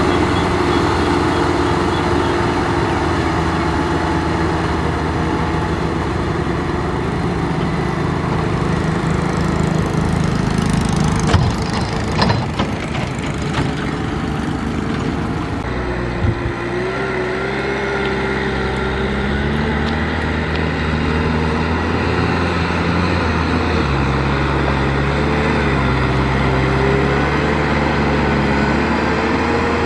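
Kubota M6040SU tractor's four-cylinder diesel engine running steadily under load as it drags a rotary tiller through flooded paddy mud. A few knocks sound around the middle, and the engine note wavers in the second half.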